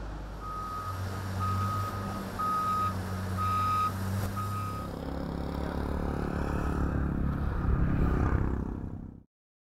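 Reversing alarm on a heavy earthmoving machine, five steady beeps about once a second over its engine running. A steady low rumble follows and cuts off suddenly near the end.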